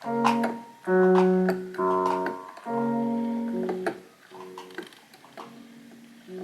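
Music: a run of sustained instrumental chords, four strong ones about a second apart and then softer ones, with light clicks between.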